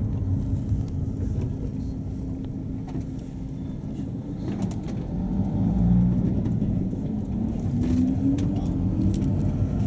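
Engine and road noise of a moving Luidor-223206 minibus (Mercedes-Benz Sprinter Classic) heard from inside the cabin: a steady low rumble, with the diesel engine's note rising as it accelerates over the second half.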